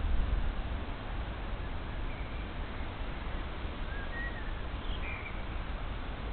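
Outdoor ambience: a steady hiss with a low rumble that eases after the first second, and a few faint, short bird chirps about two, four and five seconds in.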